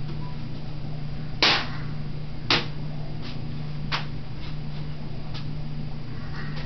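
Cardboard wrapping-paper tube swung and smacked down by a toddler: three sharp hits, the first the loudest, and a few lighter taps, over a steady low hum.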